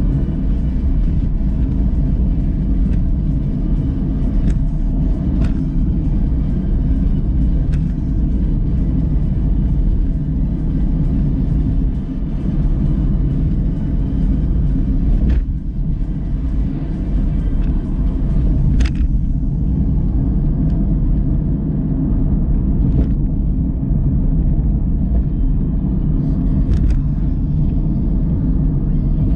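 Steady low rumble of road and engine noise inside a moving car's cabin, with a few brief clicks.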